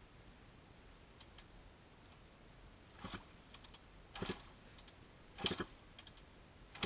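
Dirt bike being kick-started in a mud puddle: four short, faint kicks about a second apart, the engine turning over briefly each time without catching.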